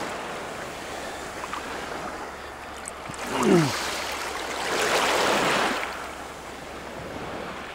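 Small waves breaking and washing over a pebble beach, swelling about three seconds in and again about five seconds in. A brief falling sound comes about three and a half seconds in, the loudest moment.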